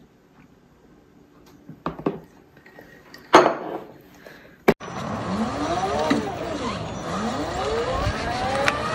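A few light clinks and a sharp knock from a drinking glass and high-chair tray, then, from about 5 s in, a Ryobi battery-electric riding lawn mower driving: its motor whine rises and falls in pitch over a steady running noise.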